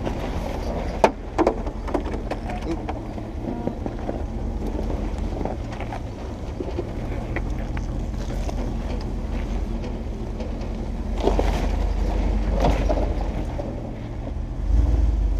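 Jeep Wrangler TJ crawling slowly over rocks, its engine running low and steady under the crunch of tyres on loose stone. A few sharp knocks come about a second in, a rougher, louder stretch of scraping and crunching follows later, and a heavy low thump comes near the end.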